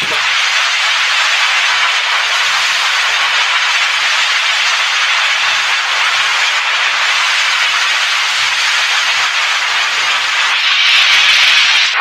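A loud, steady hiss of noise with no clear pitch, swelling slightly near the end and cutting off suddenly.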